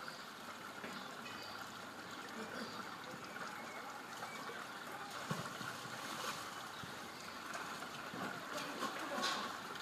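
Faint, even background hiss with a few soft, brief knocks.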